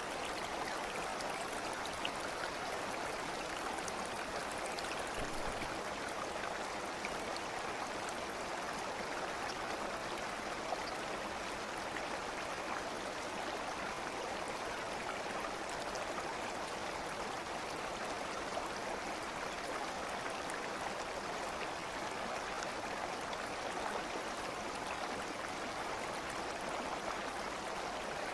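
Steady flowing stream water, an even rushing with faint small splashes and trickles.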